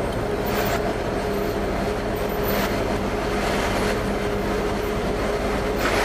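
A Humvee's diesel engine running at low speed as it creeps into a C-17's cargo hold, under a steady machinery hum with a couple of held tones.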